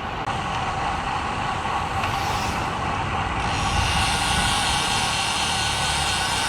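Steady rushing noise of a road bike in motion: wind on the rider's microphone and tyre noise on the road, with a hiss that swells about three and a half seconds in.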